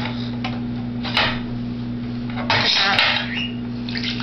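Can of condensed chicken noodle soup being emptied into a ceramic bowl: short knocks and scrapes of the tin can, and a longer stretch about two and a half seconds in as the soup slides out into the bowl.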